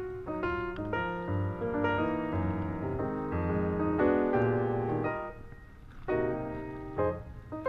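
Background music: piano playing a melody over low chords, dipping briefly softer past the middle.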